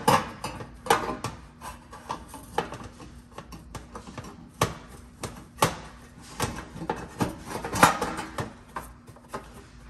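Sheet-metal rear panel of a range clanking and scraping against the stove body as it is worked into its tabs and holes: irregular knocks and scrapes, the sharpest near the end.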